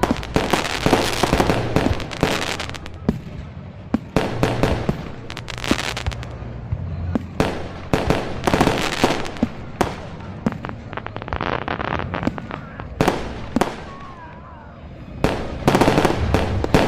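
Fireworks going off in a rapid run of bangs and crackles, easing for a moment before a loud cluster of bursts near the end.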